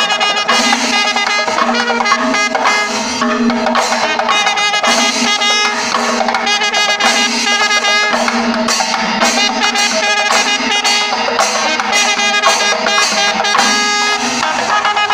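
Panchavadyam temple ensemble playing continuously. Timila hourglass drums are beaten by hand in a rapid rhythm while curved brass kombu horns sound sustained notes over them, with the shimmer of ilathalam cymbals.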